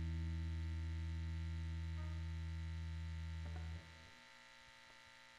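The faint, slowly fading last sustained note of the song's ending, which stops suddenly about four seconds in. It leaves a fainter steady hum and a couple of small clicks.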